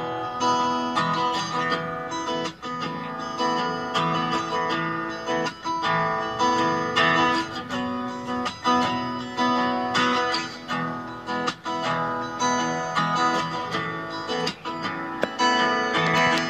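Guitar music with plucked and strummed notes, played from a phone through a loudspeaker driven by a PAM8403 mini amplifier board that sits submerged in water, still working underwater.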